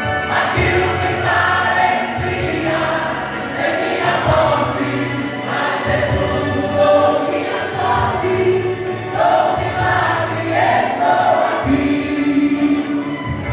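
A vocal group singing a gospel song in Portuguese with instrumental backing and a steady bass line.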